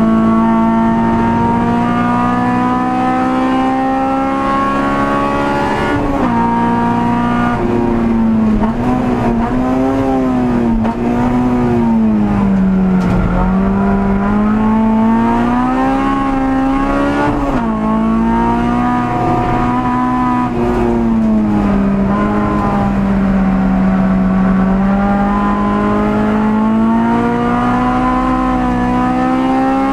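Honda Civic EG6 race car's VTEC four-cylinder engine at high revs, heard from inside the stripped cabin. The pitch climbs slowly, drops sharply about six seconds in, then rises and falls several times before a long steady climb near the end.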